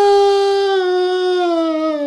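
A man's long drawn-out crying wail: one high note held and slowly sliding down in pitch.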